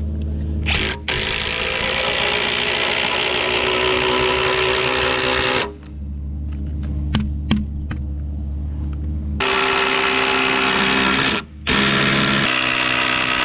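A Ryobi cordless drill driving a 10-inch lag screw down into a log timber, its motor whining steadily under load. It runs for several seconds, pauses with a couple of knocks, then starts again about nine seconds in, with a brief stop shortly after.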